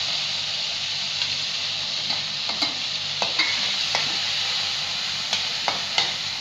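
Chopped tomatoes sizzling in hot oil in a kadhai, with a steady hiss. From about a second in, a perforated metal ladle scrapes and clinks against the pan as they are stirred.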